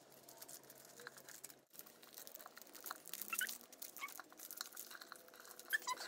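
Clear plastic cake pop treat bags crinkling and rustling as they are handled and tied around the sticks, in short scattered crackles that are loudest around three seconds in and again near the end.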